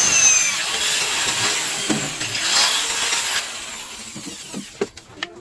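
Electric drill boring through a metal frame tube, running steadily, then dying away about three and a half seconds in, followed by a few light knocks near the end.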